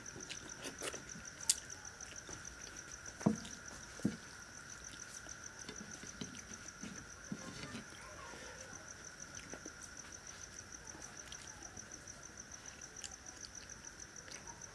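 Crickets trilling steadily, with wet squishing and a few sharp clicks and knocks in the first four seconds as rice and fish curry are mixed and eaten by hand from a clay plate.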